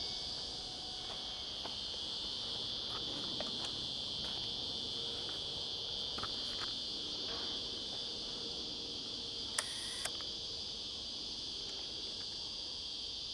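Steady high-pitched chorus of insects chirring, with scattered faint clicks of handling and one sharper click about three quarters of the way through.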